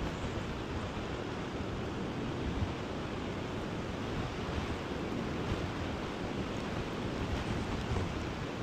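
Steady rushing of river water, with some wind buffeting the microphone.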